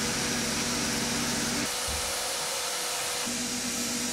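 A machine running steadily: an even hiss with a low hum that drops away for about a second and a half midway, then returns.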